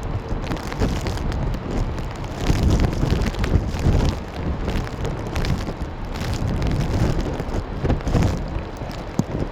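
Strong gusty wind buffeting the microphone: a low rumbling noise that swells and falls with each gust, with scattered crackles.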